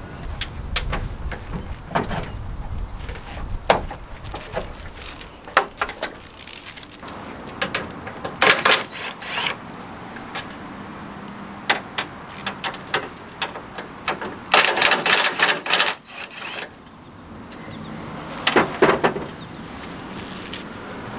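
Ryobi cordless drill/driver backing out screws from the pickup's bed rail in short runs of a second or so, twice around the middle and once near the end. Between the runs come scattered clicks and knocks of screws and plastic trim being handled.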